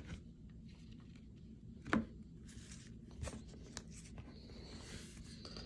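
Baseball trading cards being handled and flipped through, with faint rubbing and one sharp tap about two seconds in.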